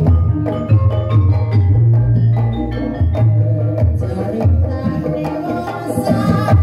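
Javanese Banyumasan ebeg gamelan music led by hand-played kendang barrel drums: deep bass drum strokes alternate with sharp slaps, over sustained metallic gamelan tones and a woman's singing.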